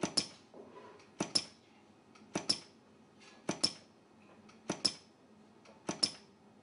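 Pneumatic brush-head gluing machine clicking in a steady rhythm: six sharp double clicks, a little over a second apart, as the metal brush holder is stepped along under the glue nozzle.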